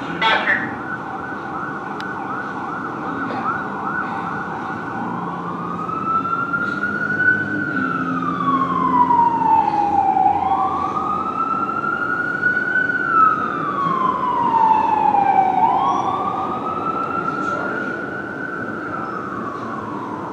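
A fire engine's siren: a fast yelp for the first few seconds, then a slow wail that rises and falls in cycles of about five to six seconds.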